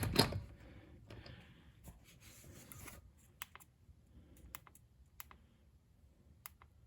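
Light clicks and taps of a socket swivel adapter and sockets being handled: a quick cluster at the very start, then a few scattered single clicks.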